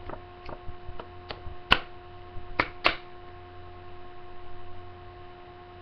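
Steady electrical hum with a handful of sharp clicks and taps in the first three seconds, the loudest a little under two seconds in.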